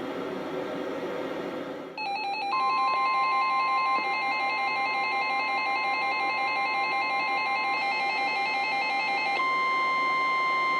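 Faint radio noise, then about two seconds in a weather radio receiver starts its pulsing alert beeps. Under them comes the steady 1050 Hz NOAA Weather Radio warning alarm tone, the signal that a warning is about to be read. The beeps stop near the end while the long steady tone holds.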